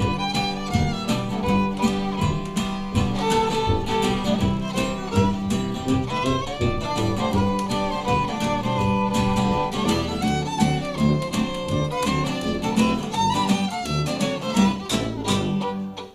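Live string-band music: a fiddle playing an instrumental break over guitar and a steady bass, with a regular beat of sharp percussive clicks. The tune ends right at the close.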